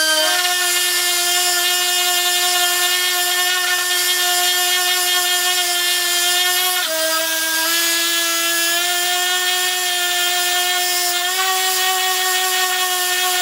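Air-powered orbital sander running at speed, a steady high whine over a hiss, its disc sanding down a plastic weld on a polyethylene washer reservoir. The pitch shifts slightly a few times as the tool is loaded against the plastic.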